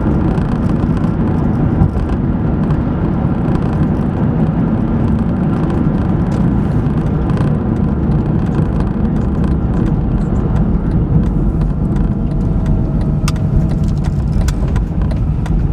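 Steady road and engine noise inside a small hybrid car's cabin while it drives along: an even low rumble, with a few light clicks near the end.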